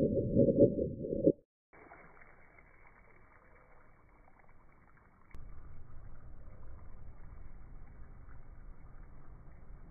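Water gushing and splashing from a burst water balloon, slowed down so it comes out as a deep, muffled rush, which cuts off about a second and a half in. After that only a faint, steady background hiss, a little louder from about five seconds in.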